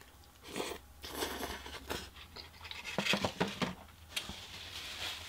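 Close-up mouth sounds of eating black bean noodles (jajangmyeon): slurping the noodles in, then wet chewing in short, irregular bursts, with a quick cluster of smacks about three seconds in.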